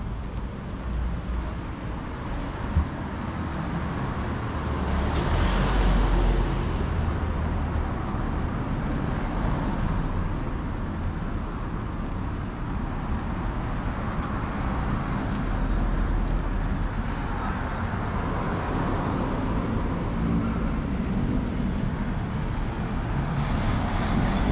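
City street traffic: vehicles passing one after another, each swelling and fading, over a steady road hum, with a single sharp click about three seconds in.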